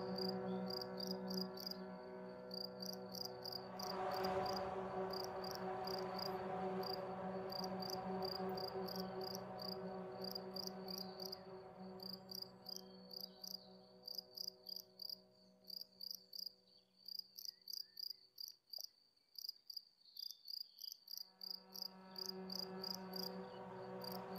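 Crickets chirping in quick, evenly repeating pulses over a soft, sustained ambient music drone. The drone fades away about two-thirds of the way through, leaving the chirping alone, then swells back in near the end.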